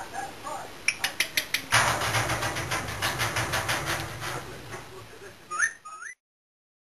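Cockatiel tutting in a rapid run of sharp clicks, then two short rising whistles near the end before the sound cuts off.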